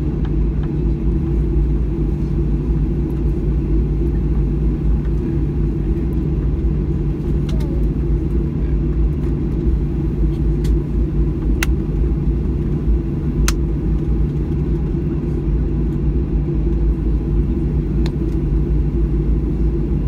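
Cabin rumble of a Boeing 737-800 taxiing, its CFM56-7B engines running at low thrust with a deep, steady drone. Two sharp clicks come a couple of seconds apart, a little past midway.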